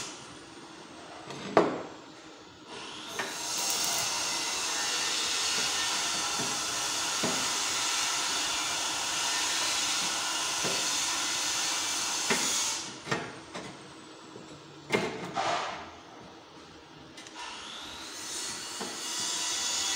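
Arc welding on steel tubing: a steady hiss that cuts in about three seconds in, stops suddenly around twelve seconds and builds back near the end. In the quiet gaps there are light metal clicks and knocks as the tubes are handled.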